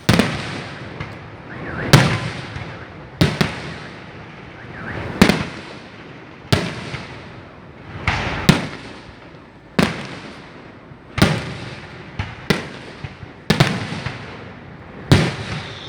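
Fireworks display: shells bursting one after another, a loud bang about every second or so, sometimes two in quick succession, each trailing off in a fading hiss.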